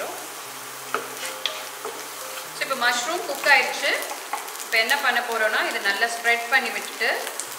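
Chopped mushrooms sizzling in butter in a nonstick frying pan. From about three seconds in, a wooden spatula stirs them, scraping in quick strokes over the sizzle.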